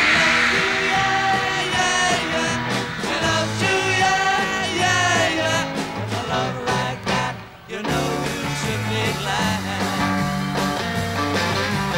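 1963 beat-group rock and roll: lead and harmony vocals over electric guitars, bass guitar and drums, with a short drop in the sound a little past the middle before the band comes back in.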